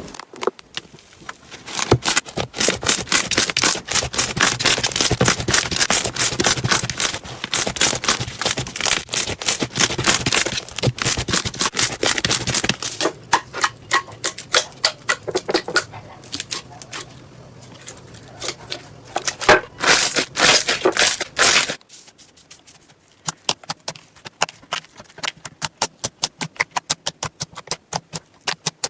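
Slime being squeezed and kneaded by hand, giving rapid, uneven crackling and popping clicks, typical of crunchy slime. About two thirds of the way through the clicks thin out to sparser pops.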